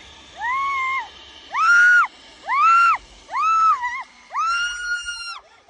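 A person screaming in fright: five long, high-pitched screams, about a second apart.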